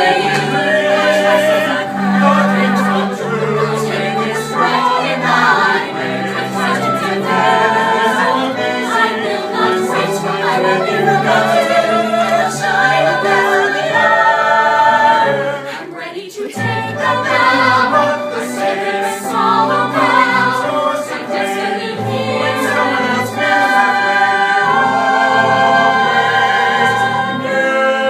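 Cast of a stage musical singing together in chorus with accompaniment, holding long wavering notes. The sound drops briefly a little past halfway, then the singing picks up again.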